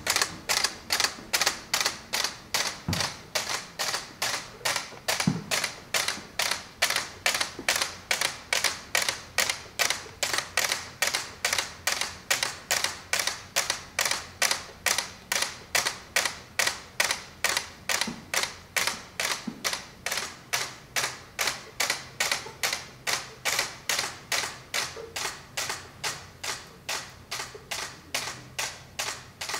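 Steady, evenly spaced clicking, about three clicks a second.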